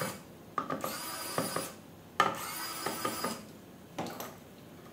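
Small electric precision screwdriver whirring in two runs of about a second each as it backs out a small screw, with light clicks of the bit on the metal.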